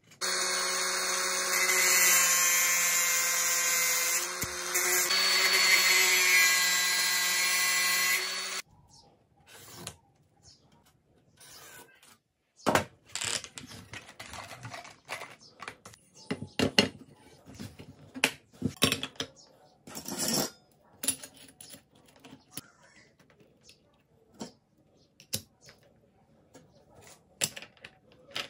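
A power tool's motor runs steadily and loudly for about eight and a half seconds, its pitch shifting slightly partway, then stops abruptly. After it come scattered clicks and metal clinks from a cordless angle grinder being handled while its disc is taken off and a chain-toothed disc is fitted.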